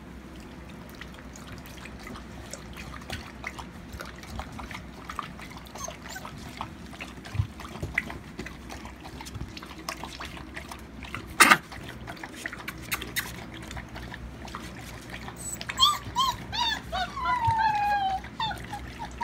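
Alaskan malamute puppies scuffling and play-wrestling, with soft rustles and small clicks and one sharp knock about midway through. In the last few seconds they break into high, falling whines and yelping squeals.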